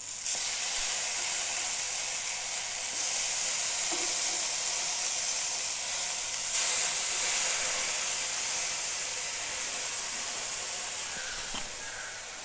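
Brinjal slices shallow-frying in oil in a nonstick pan, sizzling steadily while they are turned over with tongs. The sizzle gets louder about six and a half seconds in, then slowly dies down.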